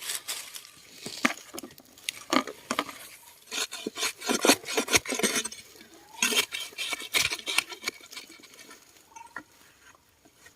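Irregular scraping, rustling and light clinks of hands and a small spade working loose soil and snail shells while digging snails out of earth holes, busiest in the first two-thirds and thinning out near the end.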